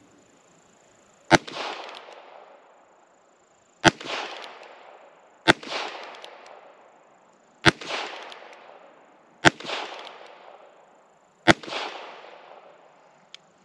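Heritage Rough Rider .22 LR single-action revolver firing six shots of Winchester Super X 40-grain Power Point, about two seconds apart, each sharp crack followed by a fading echo. All six go off normally, with no misfires or weak-sounding rounds.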